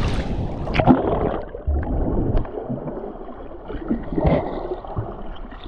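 Seawater splashing and gurgling around a camera as it goes under. The sound turns muffled about a second in, after a single knock, and stays a dull, uneven underwater wash with a few small knocks.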